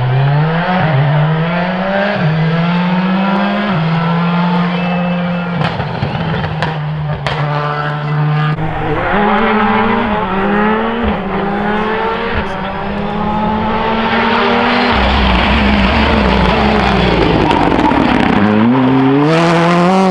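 Rally car engines at full throttle. The engine pitch climbs and drops back with each gear change, with a few sharp pops, and a second car takes over partway through.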